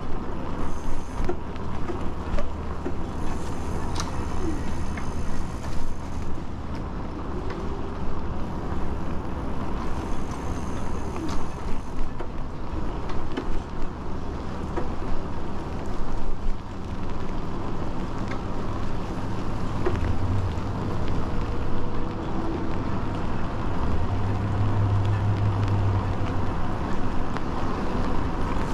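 Wind rumbling on the microphone of an e-bike riding along a wet paved path, with tyre noise from the wet surface. The rumble swells and eases unevenly and is heavier about two-thirds of the way in.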